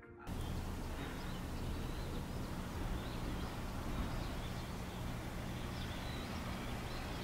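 Steady outdoor background noise with a low hum, as picked up by a small security-camera microphone, with faint bird chirps now and then.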